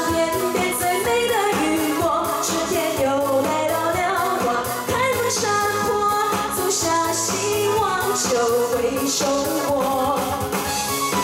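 A woman singing a Mandarin pop song live into a microphone over upbeat pop backing music.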